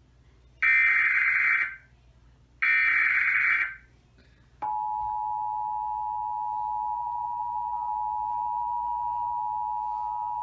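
Emergency Alert System header: the last two of the three screeching digital data bursts, each about a second long, followed about four and a half seconds in by the steady two-tone attention signal, a continuous dual-pitched beep that announces a severe thunderstorm warning.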